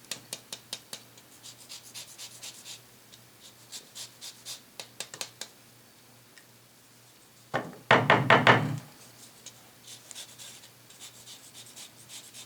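Lemon being zested on a rasp grater: a run of quick, rough scraping strokes, then a short cluster of loud knocks about eight seconds in, and more light scraping near the end.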